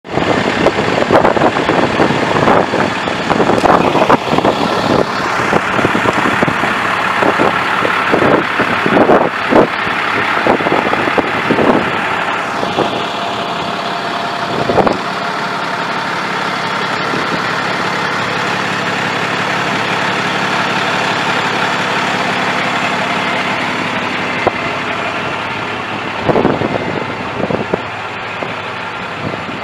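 Paccar PX-6 inline-six diesel of a Peterbilt ramp truck idling steadily. Short knocks come and go over the first half and again briefly near the end.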